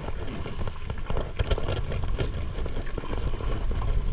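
Wind buffeting the microphone and water sloshing against a small boat's hull at sea, with scattered irregular knocks.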